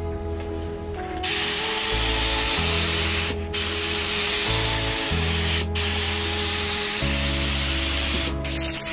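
Gravity-feed air spray gun hissing as it sprays a topcoat onto panels. The spray starts about a second in and stops briefly three times between passes. Background music plays underneath.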